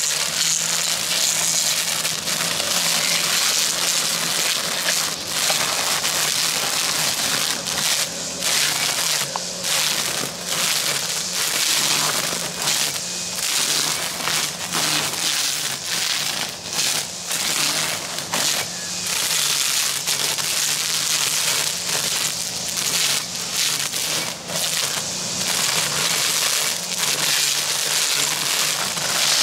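Battery-powered string trimmer running steadily, its line shredding tall grass and weeds in a continuous dense hiss over a low motor hum. The sound dips briefly many times as it works.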